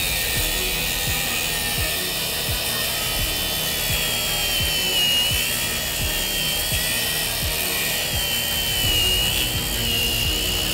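Angle grinder with an aluminium-cutting disc slicing through a Nissan CD009 transmission's cast-aluminium bellhousing. Its high whine holds steady, wavering and dipping slightly in pitch as the disc bites.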